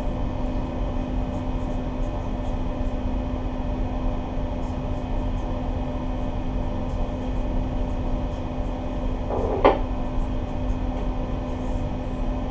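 Steady low drone of a towboat's diesel engines, with a constant hum running through it. A brief voice-like sound cuts in once, just under ten seconds in.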